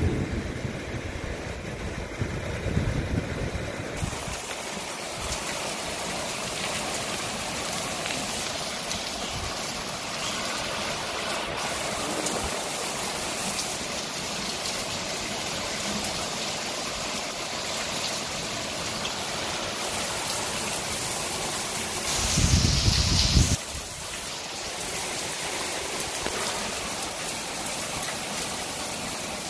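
Heavy downpour of rain falling on a garden and paved patio, a steady even hiss. A low rumble sits under it in the first few seconds, and about three-quarters of the way through a loud low rumbling burst lasts about a second and a half.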